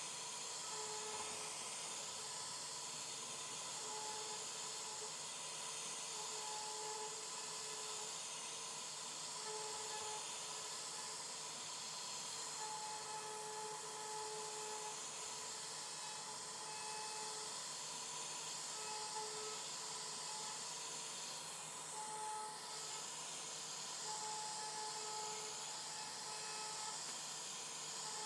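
CNC router carving a wooden door panel: a steady high hiss from the spindle and cutter, with a short whine that comes and goes every second or two as the machine moves.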